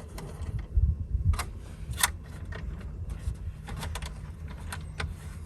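Small metal hardware being handled: a few scattered clicks and light taps as a stud, washer and nut are fitted together by hand, with some low handling knocks near the start.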